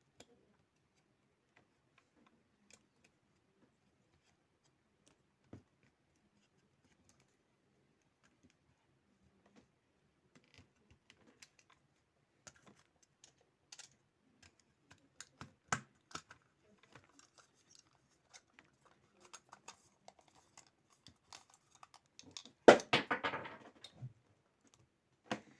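Light plastic clicks and taps of a computer mouse's small parts being handled and fitted back together. Sparse at first and busier later, with a short loud clatter near the end.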